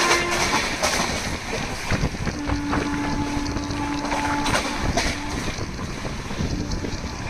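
Horn of the Deccan Queen express's locomotive sounding as the train runs through the station at speed. One horn note ends about half a second in, and a longer, lower note follows from about two and a half to five and a half seconds in. Both sound over the steady rush and clatter of the passing train.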